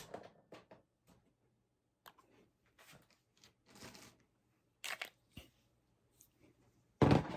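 Scattered light clicks and rustling of gear being handled, with a few sharper clicks about five seconds in. Near the end comes a loud, sudden noise.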